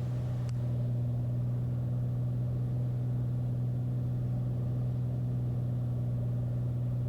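Beechcraft A36 Bonanza's six-cylinder piston engine and propeller droning steadily at reduced power on final approach.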